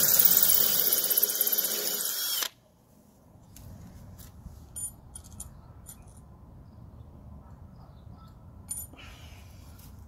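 Cordless drill running at speed, boring a small pilot hole into brick, then stopping abruptly about two and a half seconds in. After it, a few faint clicks over low background noise.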